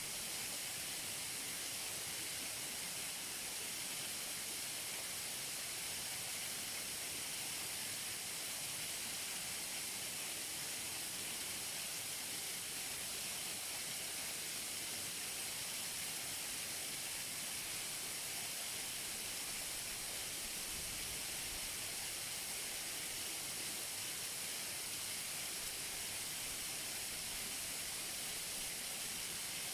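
Waterfall: water falling and splashing in a steady, even hiss with no breaks.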